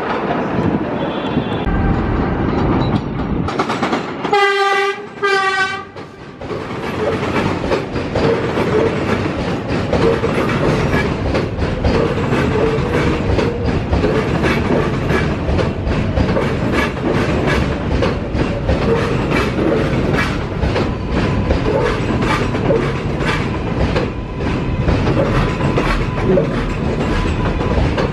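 New York City Subway R188 train on the elevated 7 line sounds two short horn blasts about four seconds in. It then runs past the platform with a steady rumble and the clatter of wheels over rail joints.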